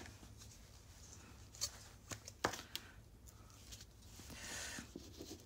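Quiet handling of a white Sakura marker: a few light clicks as it is picked up and its cap pulled off, then a soft brushing rustle on paper near the end.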